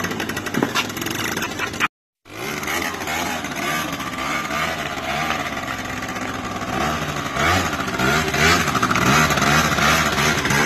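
Two-stroke scooter engine running, its pitch rising and falling with the throttle, with a brief total gap in the sound about two seconds in.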